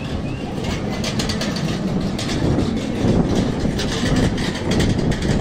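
A heavy vehicle rumbling past with a dense rattling clatter, getting louder over the first few seconds.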